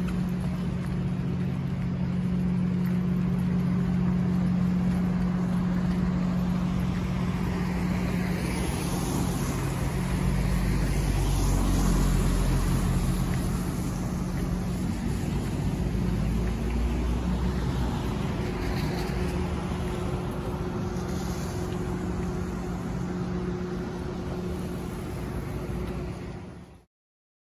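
Street traffic: cars driving past on a wet road, with a steady low hum underneath. It swells as vehicles go by and cuts off suddenly just before the end.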